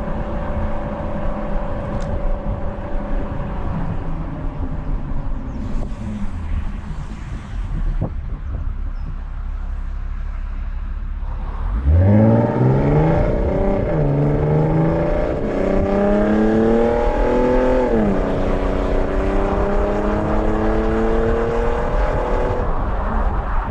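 Porsche Cayenne 957 3.6 VR6 engine through its stock exhaust, running steadily at first. About halfway it pulls hard under acceleration, the pitch climbing with two drops for upshifts, then holds before easing off near the end.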